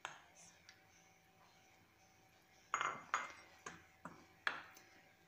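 Spoon clinking against a bowl while stirring water into gram flour for batter: one click at the start, then about five sharp, slightly ringing clinks in quick succession in the second half.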